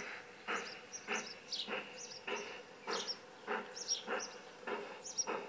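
Sound unit of an LGB G-scale model steam locomotive chuffing slowly and evenly, about one and a half to two chuffs a second. Birds chirp over it with short falling notes.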